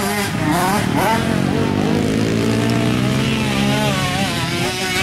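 Motocross dirt bike engines running on the track, revving with the pitch climbing steadily through the middle.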